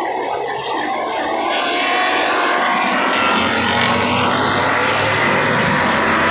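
Race cars at speed on the circuit, their engines getting louder from about a second in as they come by.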